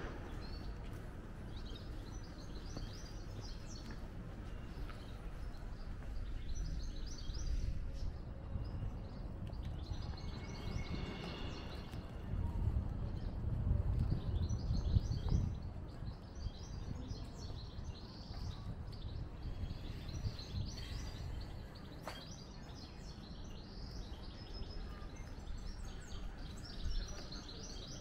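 Small birds chirping on and off over a steady low outdoor rumble, which swells louder for a few seconds around the middle.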